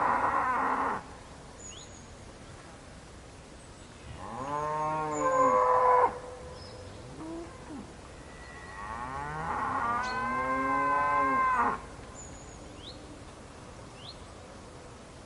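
Cattle mooing: one moo ends about a second in, a second, the loudest, runs from about four seconds and cuts off sharply, and a third, the longest, swells from about eight and a half seconds to near twelve.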